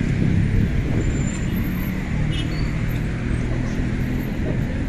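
An engine running steadily with a constant low rumble and rushing noise.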